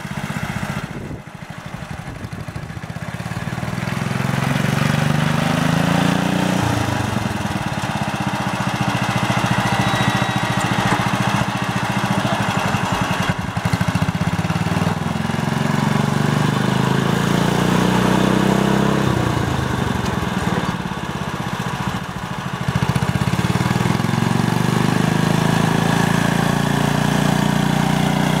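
Small engine of a Sears 600 garden tractor running under load while it pushes a front blade through sand. Its speed climbs and falls back several times, dropping off sharply more than once and picking up again.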